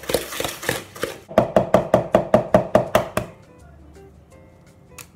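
A spoon beating caster sugar into a soft mixture in a bowl, creaming it: rhythmic scraping knocks that quicken into fast, even strokes against the bowl, about six a second, with a slight ring. The strokes stop about three seconds in, leaving faint background music.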